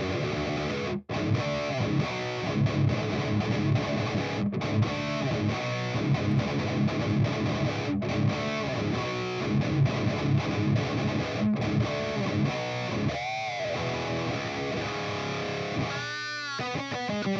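Distorted electric guitar played through a Mesa Boogie Triple Crown amplifier and 2x12 speaker cabinet: continuous riffing with a few sudden stops, and bent notes swooping in pitch near the end.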